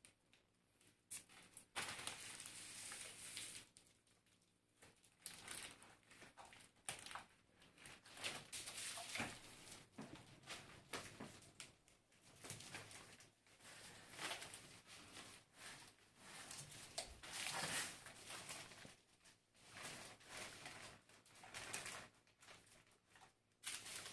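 Plastic wrapping and bubble wrap rustling and crinkling in irregular stretches, with scattered clicks and knocks from handling the folding e-bike's frame.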